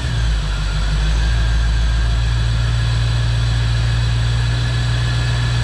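1988 Corvette's L98 5.7-litre V8 idling steadily, just after catching on a start with no throttle. The owner takes this easy start as the sign that the new fuel pressure regulator has cured its hard starting.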